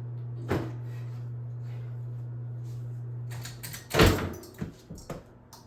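A steady low electrical hum that cuts off about three and a half seconds in. Half a second later comes a loud knock, followed by two lighter knocks.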